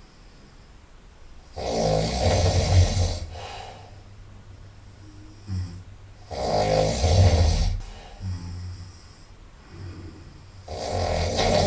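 Very loud nasal snoring from a sleeping person: one long snore every four to five seconds, each lasting over a second, with quiet gaps between; the third snore begins near the end.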